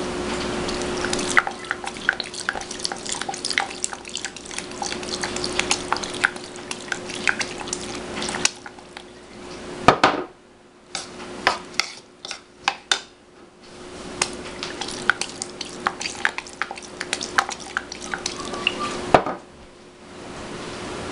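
Metal spoon stirring ground roasted peanuts and fish sauce in a ceramic bowl: repeated clinks and scrapes against the bowl, with a sharper knock about halfway through and a quieter, sparser stretch around the middle. A steady hum runs underneath.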